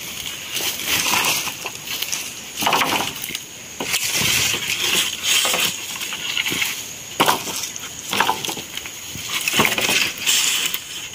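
Thin wooden poles knocking and clattering against each other as they are dragged and laid onto a pile, with rustling of dry leaves and brush underfoot; several sharp knocks a few seconds apart.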